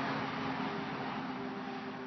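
Steady outdoor hiss with a faint low hum beneath it and no distinct events.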